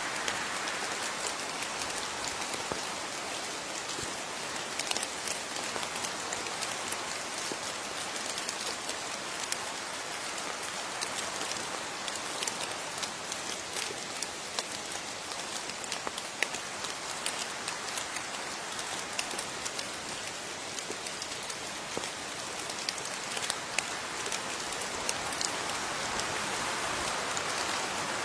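Steady rain falling, a constant hiss with individual drops ticking sharply on a surface throughout.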